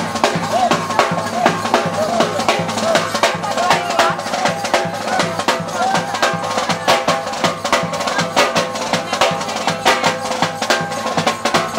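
Marching drum band playing for masquerade dancers: a large bass drum and a smaller snare-type drum beating a fast, steady rhythm, with a high held melody with quick ornaments over the drums.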